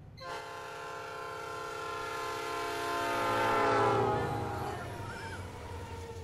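Train horn sounding one long chord as a train passes, growing louder and then fading out about four to five seconds in, over the low rumble of the moving train.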